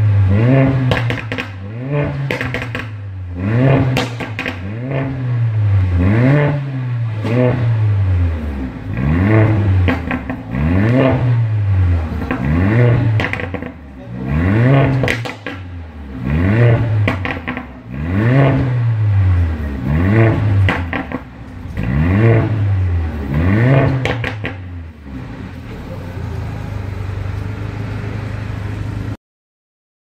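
2016 Mercedes-AMG A45's turbocharged 2.0-litre four-cylinder, stock exhaust in Race mode, revved in repeated throttle blips about every two seconds, each rising and falling in pitch and followed by crackles and pops on lift-off. It settles to a steady idle about 25 seconds in and cuts off shortly before the end.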